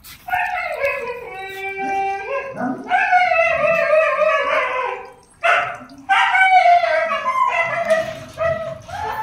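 A dog whining and howling in three long calls, each sliding down in pitch, the third starting about six seconds in.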